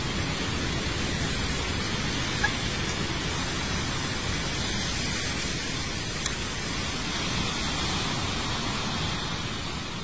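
Steady, even hiss of background noise, with a faint tick or two and no clear bird calls.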